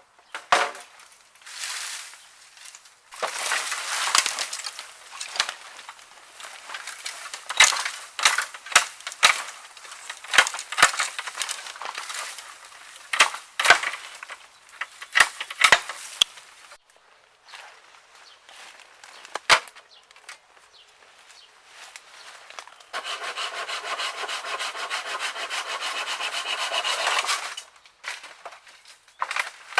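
Dry, dead bamboo being broken and handled: repeated sharp cracks and splintering snaps mixed with wood rubbing and scraping, then a steady rasp lasting about four seconds near the end.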